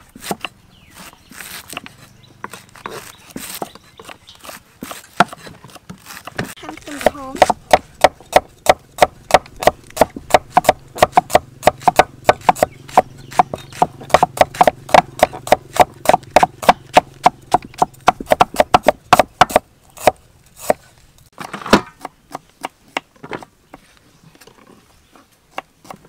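Steel cleaver chopping vegetables on a wooden chopping block: sharp knocks of the blade hitting the wood. The chops are scattered at first, then come in a fast, even run of about three to four a second from roughly seven seconds in to about twenty seconds, and thin out again near the end.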